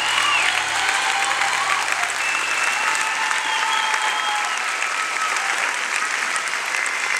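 Theatre audience applauding steadily, with a few cheers rising above the clapping.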